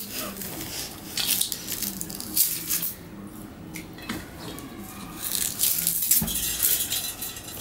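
Sugar cane rind being stripped off with the teeth: sharp cracking and ripping of the fibrous peel in irregular bursts, with peel strips dropped into a steel bowl.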